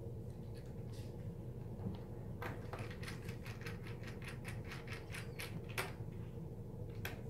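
Small Phillips screwdriver driving a screw into a laptop's screen hinge, giving a quick run of light clicks, about four a second, for about three seconds, then a single click near the end, over a low steady hum.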